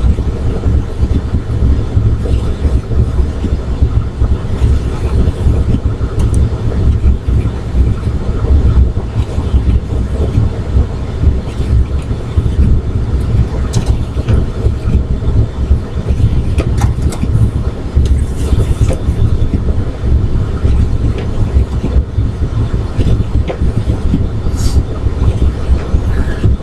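Car driving on the road, heard from inside the cabin: a steady low rumble of road and engine noise.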